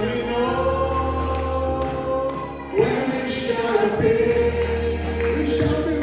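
Gospel worship singing by a group of voices over a low bass accompaniment, in long held notes; a new phrase begins about three seconds in.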